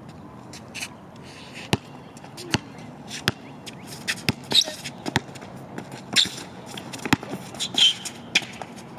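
Basketball dribbled on an outdoor hard court: a series of sharp bounces that come closer together after about four seconds, with short sneaker squeaks and scuffs between them.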